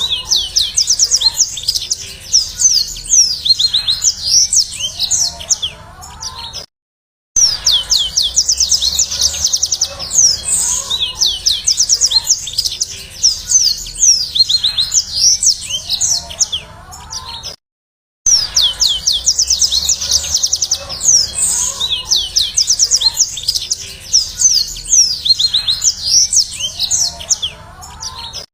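Yellow-fronted canary (Mozambique canary) singing loudly in long, rapid high-pitched trills and chirps. The song stops briefly twice, about 7 and 18 seconds in, and the same passage repeats, as in a looped recording.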